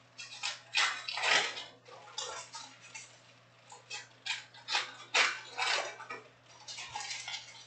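Foil trading-card pack wrappers crinkling and rustling as packs are torn open and cards handled, in irregular bursts of under a second each.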